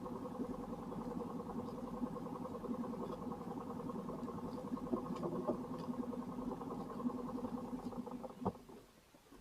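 An engine running steadily with a rapid flutter, dying away about eight seconds in, followed by a sharp knock.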